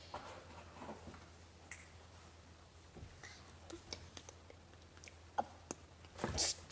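Light scattered clicks and small handling noises of fingers working a small plastic toy piece close to the microphone, with one sharper click and then a brief louder rustle near the end.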